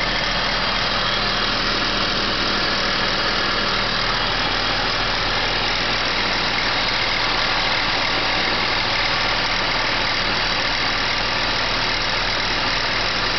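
BMW E39 engine idling steadily after a cold start, heard at the belt drive by the alternator, with a knocking noise that the owner traces to the hydraulic belt tensioner.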